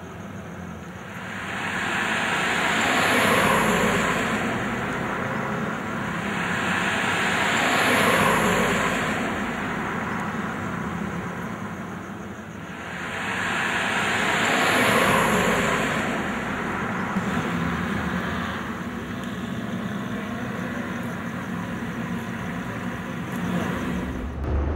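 Street traffic: three vehicles pass one after another, each rising and fading over a few seconds, over a steady background hum of traffic.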